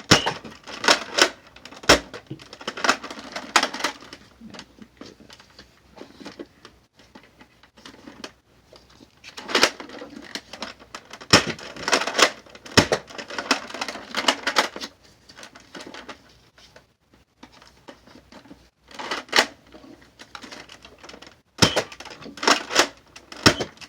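Toy Nerf shotgun being worked and fired: plastic clacking and rattling in several bursts, with a few single sharp snaps between them.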